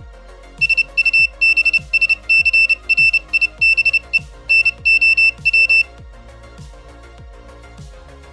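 A 5 V active buzzer beeping Morse code: a run of short and long high-pitched beeps lasting about five seconds, over background music with a steady beat.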